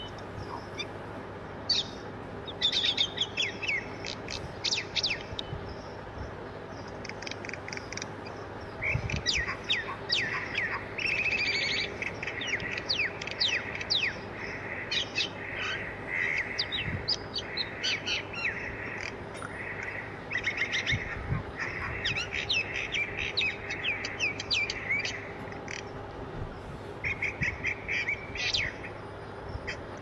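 Birds chirping and twittering in many short, high calls that come in quick runs, busiest through the middle, over a steady low hum.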